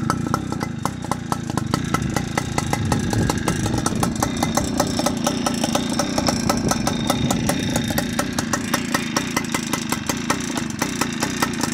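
Tomos Youngster moped's single-cylinder two-stroke engine idling through a chrome Zündapp exhaust, running steadily with an even, rapid firing beat.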